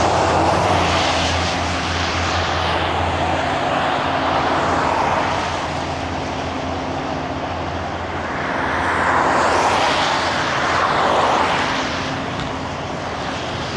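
Semi-truck diesel engine running steadily with a low hum, under a rushing noise that swells near the start and again around nine to eleven seconds in.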